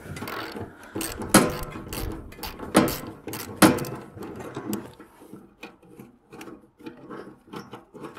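Ratchet wrench clicking in short strokes while loosening a nut and bolt on a welder's steel base, with three loud metal knocks in the first four seconds, then lighter clicks.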